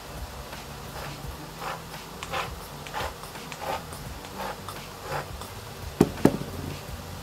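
Around six short rustling strokes, roughly two-thirds of a second apart, then two sharp clicks in quick succession about six seconds in, over a steady low hum.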